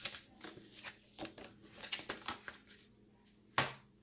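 Paper and cardboard packaging being handled: short, irregular rustles and light scrapes, with one louder, sharper sound about three and a half seconds in.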